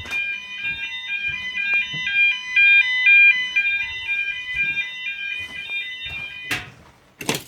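Fire alarm sounders, among them a Banshee sounder, sounding together in alternating high two-tone patterns after a manual call point has tripped the system. The alarm cuts off about six and a half seconds in with a click, and another click follows a moment later.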